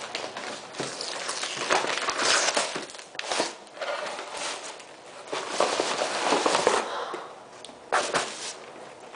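Brown kraft paper wrapping being torn and crumpled open by hand, in irregular crinkling, rustling bursts.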